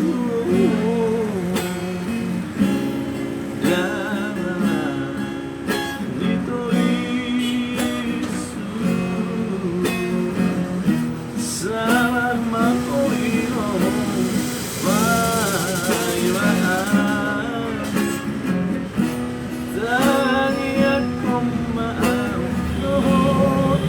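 Music played on a strummed acoustic guitar, with a melody line above it.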